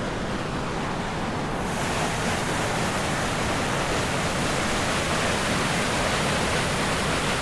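Steady rushing wind noise, getting brighter about two seconds in.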